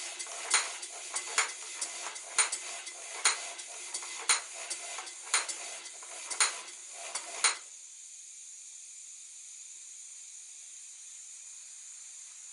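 Stuart Victoria model steam engine running and driving small belt-driven model workshop machines: a light metallic clatter with sharp clicks about once a second. The clatter stops suddenly a little over halfway through, leaving only a steady hiss.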